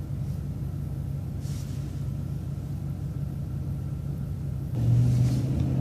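City transit bus running along a street with a steady low engine hum. Near the end it grows clearly louder.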